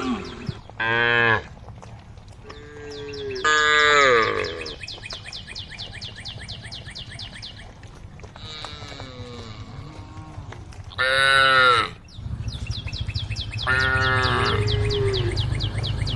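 Cows mooing repeatedly, about five separate calls in turn, some of them sliding down in pitch, as they call to the herd.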